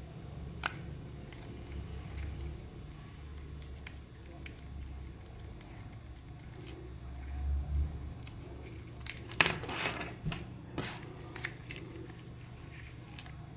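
Scattered clicks and rustles of small objects being handled, with a burst of sharper clicks about nine to ten seconds in, over a steady low hum.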